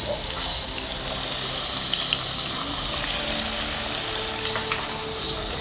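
Fish frying in hot oil: a steady sizzle with a few sharp pops.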